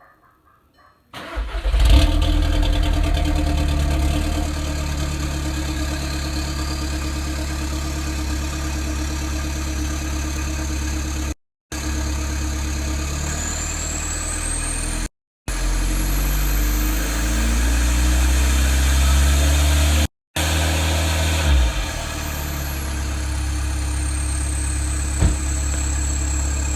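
2011 Volkswagen Golf Wagon 2.0L TDI four-cylinder diesel cold-starting about a second in, then running through a straight exhaust with the DPF and catalytic converter deleted, a Buzzkin downpipe and the stock muffler. Turbo whistle rises to a high pitch as the engine is revved, then falls away as it drops back toward idle near the end. The sound cuts out briefly three times.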